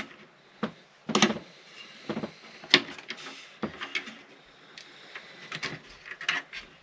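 Irregular clicks, taps and knocks of hands working inside the metal case of a CCTV network video recorder, unplugging the cables from the hard drive with a screwdriver in hand. There is a cluster of knocks about a second in and a sharp click a little after that.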